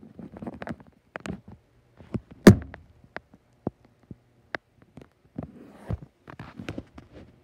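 Camera handling noise: rustling with scattered clicks and knocks, and one loud thump about two and a half seconds in.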